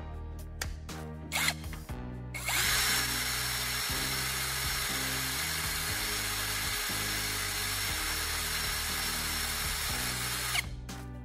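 A small handheld power tool runs steadily for about eight seconds, starting a couple of seconds in and cutting off abruptly near the end. Background music with a bass line plays throughout.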